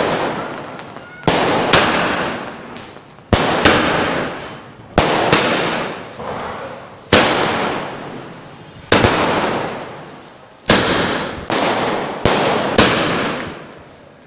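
Aerial fireworks bursting overhead one after another: a sharp bang about every two seconds, sometimes two in quick succession, each followed by a crackle of sparks that fades away.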